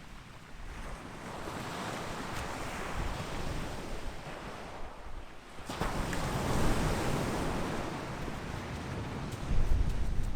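Surf breaking on a sandy North Sea beach on a rising tide, the wash swelling about a second in and again more strongly about six seconds in. Wind buffets the microphone near the end.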